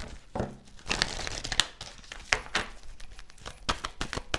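A deck of tarot cards being shuffled by hand, the cards sliding and snapping against each other in quick, irregular flicks.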